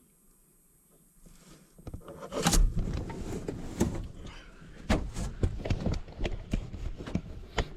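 Near silence for about two seconds, then a run of irregular knocks, clicks and rattles of things being handled and moved, over a low rumble.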